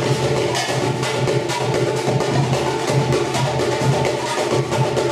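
Samba batucada: a group of drummers playing surdo bass drums and smaller drums together in a fast, steady rhythm.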